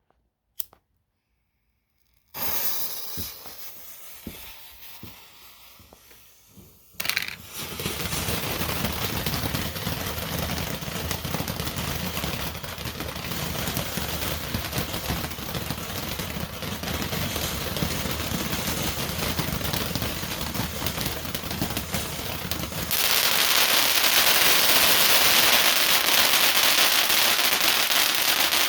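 World Class Fireworks 'Flower Power' fountain firework: a hiss starts about two seconds in and fades, then the fountain catches with a sharp burst and sprays with dense, loud crackling that grows louder and harsher near the end.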